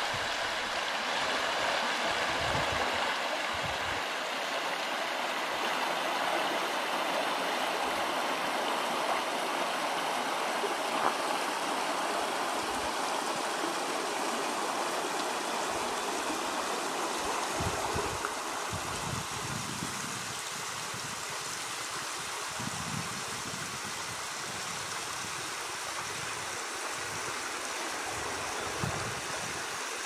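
Steady rush of flowing water, like a stream running, with irregular low rumbles in the second half.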